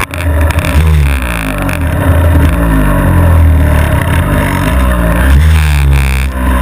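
Polini 6.2 mini moto's small two-stroke engine revving close by, its pitch rising and falling again and again as the throttle is blipped, then climbing as the bike pulls away near the end.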